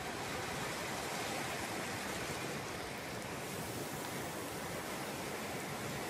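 Small ocean waves breaking and washing up over a flat sandy shore, a steady hiss of surf.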